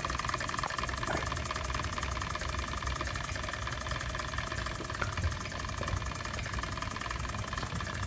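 Small homebuilt live-steam engine in a model boat, running with a fast, even beat of exhaust chuffs, several a second, over a steady hiss. The beat fades slightly toward the end.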